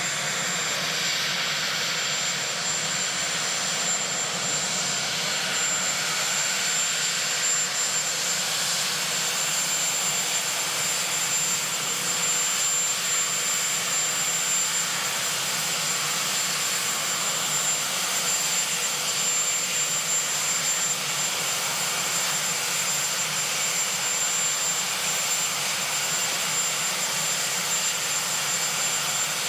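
Sikorsky VH-3D Sea King helicopter (Marine One) sitting on the ground with its turbine engines running: a steady rushing noise with a thin, high, unchanging whine.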